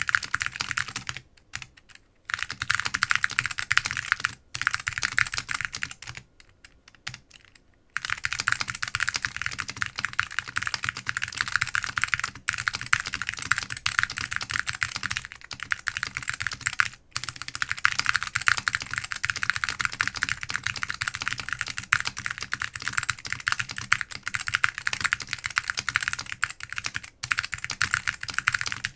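Typing on a Duck Orion V2 mechanical keyboard with Orange Alps switches that are paper-modded, lubed with Nyogel and fitted with dual-stage springs, on an FR4 plate under SGI Granite keycaps. For the first several seconds it comes in short bursts with pauses. After that it is steady, fast typing with only brief breaks.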